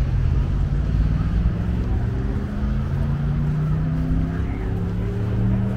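A motor vehicle's engine running, its pitch climbing slowly, over a steady low rumble.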